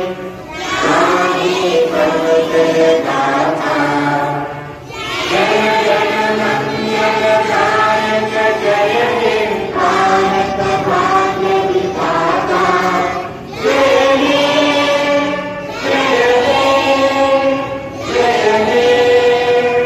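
A large group of schoolchildren singing a prayer together in unison. The long, held phrases break off every few seconds for a breath.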